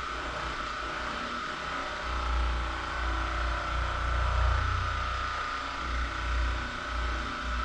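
A small motor running steadily, with a faint high whine and a low rumble that swells and fades.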